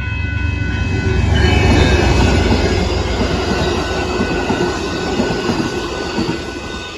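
Amtrak Texas Eagle passenger train passing close by: a loud rumble and rattle of the locomotive and cars rolling over the rails. It is loudest about two seconds in and eases off near the end.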